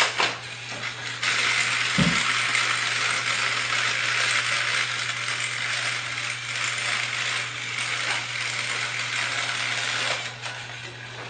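Battery-powered toy train running on plastic track, its small motor and gears making a steady, dense rattling whir over a low hum. There is a click at the start and a thump about two seconds in, and the whir fades near the end.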